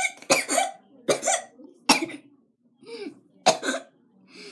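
A person coughing over and over, a string of about six or seven short, harsh coughs, the last couple weaker.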